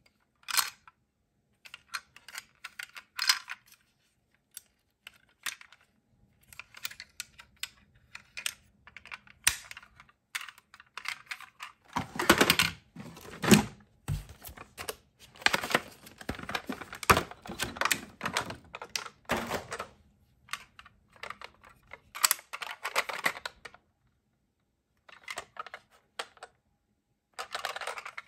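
Die-cast and plastic toy ambulances handled by hand: scattered clicks and light clatter as doors and parts are worked and the toys are knocked together and rattled against clear plastic storage bins. The clatter is densest and loudest in the middle, with short pauses between bursts.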